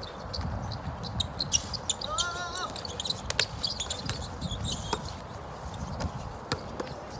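Basketball bouncing on a court: an irregular run of sharp bounces and knocks, with a brief high squeak about two seconds in, over a steady low rumble.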